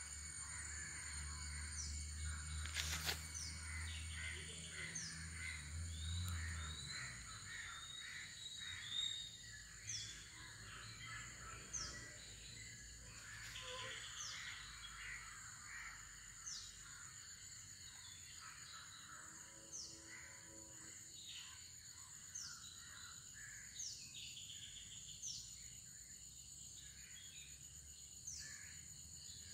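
Faint outdoor ambience: birds calling, with a short high falling chirp repeated every second or two over a steady high insect drone. A low rumble runs under it and stops about seven seconds in.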